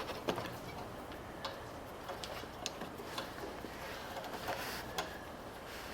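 Faint, irregular small metal clicks and ticks as a linkage wire is worked loose from the carburetor's throttle lever by hand.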